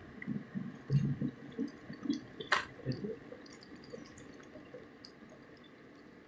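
DeLonghi electric kettle at the boil, its water bubbling and popping irregularly. A sharp click comes about two and a half seconds in, and the bubbling then dies down as the kettle switches itself off.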